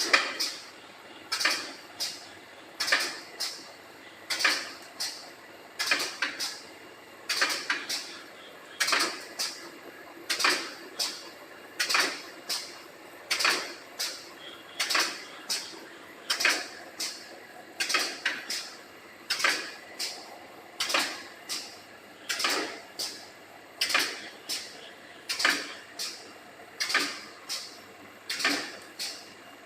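Automatic wire-mesh welding machine for bird-cage mesh, run by compressed air, working through its cycle: a burst of sharp mechanical clacks about every one and a half seconds in a steady, even rhythm.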